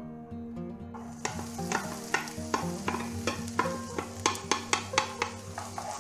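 Diced red bell pepper hitting hot oil in a frying pan and sizzling, starting about a second in, with a wooden spoon knocking and scraping against the pan as it is stirred. Background music plays underneath.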